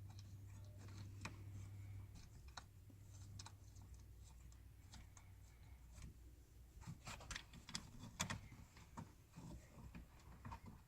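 Faint, scattered small clicks and taps of a screw and metal bracket being handled while the screw is started by hand into the seat latch mechanism, with a quick cluster of clicks in the second half. A low hum runs under the first half and then fades.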